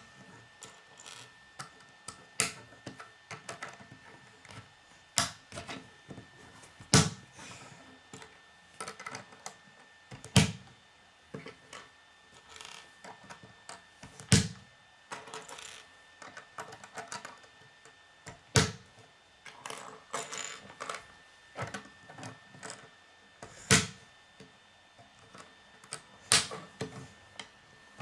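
Plastic K'nex rods and connectors clicking and snapping together as they are pressed into place. There are sharp clicks at irregular intervals, every two to four seconds, with softer small clicks and rattling of loose parts between them.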